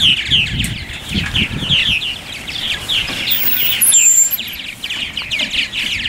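Purple martins calling together at their colony: a dense, continuous chatter of quick chirps and gurgling notes, many birds at once.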